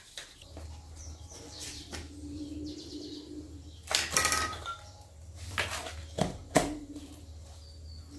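Plastic mop parts being handled and pushed together during assembly: rustling with a few sharp clicks and snaps, the loudest around the middle, over a faint steady low hum.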